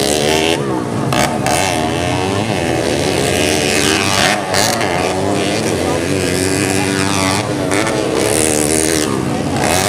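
Modified 130 cc underbone racing motorcycles revving hard on a dirt track, several at once. Their engine pitch climbs and drops again and again as the riders open and close the throttle.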